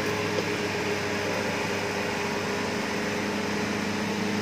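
Off-road 4x4's engine running steadily under load as the vehicle crawls up a steep dirt slope, its pitch holding level with no revving.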